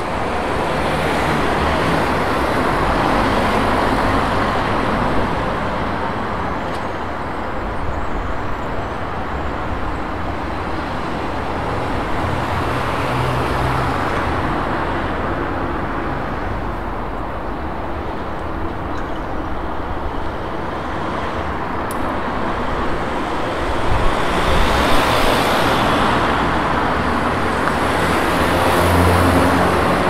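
Street traffic: a steady wash of road noise from passing cars, swelling as vehicles go by at the start and twice more near the end.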